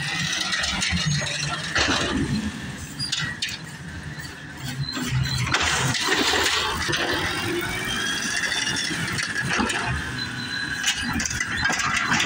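Automated side-loader garbage truck at work: the engine and hydraulics run while the lift arm raises a wheeled trash cart and tips it over the hopper, with metallic clanks and squeals from the arm. About six seconds in, a loud rush comes as the cart is dumped.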